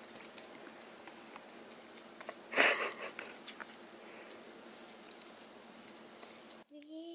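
Baby ferret licking and chewing paste from a stick pouch held in a hand: small wet clicks and smacks, with one short loud burst of noise about two and a half seconds in. A brief rising pitched sound comes near the end.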